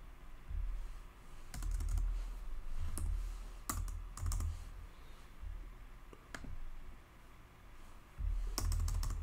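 Computer keyboard keys being typed in short, irregular clusters of clicks with pauses between them.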